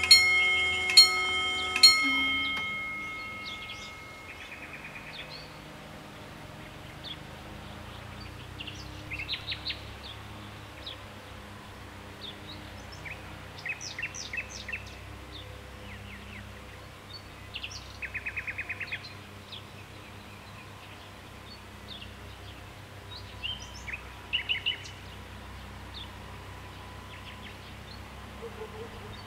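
Level crossing bell striking about once a second, stopping about two seconds in, its ring dying away. Then birds chirping and trilling now and then over a faint steady background.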